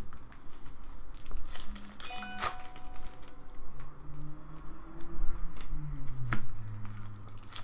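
Trading cards being shuffled through by hand, with foil pack wrappers crinkling and tearing in short rustles. A short electronic chime sounds about two seconds in, and low music runs underneath in the second half.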